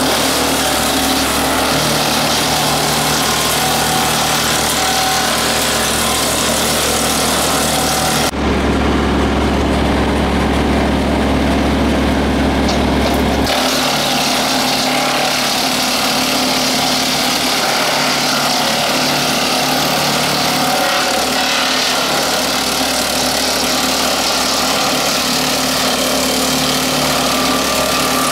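Tractor PTO driving a WoodMaxx WM-8M 8-inch wood chipper, with engine and chipper running steadily at speed. About eight seconds in the sound switches abruptly to a deeper, steadier hum with less hiss, then switches back about five seconds later.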